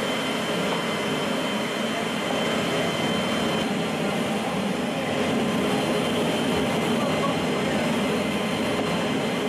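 Steady roar inside the cargo hold of a C-17 Globemaster III in flight, the noise of its turbofan engines filling the hold. A faint high whine sits over it and stops about three and a half seconds in.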